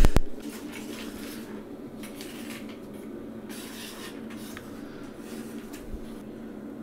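A hand scraper scraping old toilet wax-ring residue off the floor around the toilet flange, a few scratchy strokes over a steady low hum, after a sharp click at the very start.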